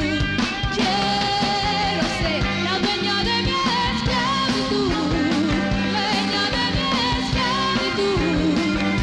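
Live rock band playing: drum kit with cymbals, electric guitar and bass, with a singing voice over it.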